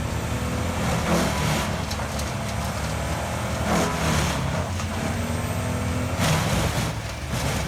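Wood chipper's engine running steadily under load, with several surges of noise as wood is fed through and chipped.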